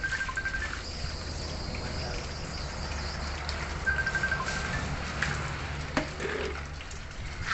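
Tap water running into a plastic basin and splashing as it is scooped with a plastic dipper and poured over a wet-sanded car hood to rinse it. A bird gives two short, rapid chirping trills, at the start and about four seconds in, over a steady high insect buzz, and there is a sharp knock about six seconds in.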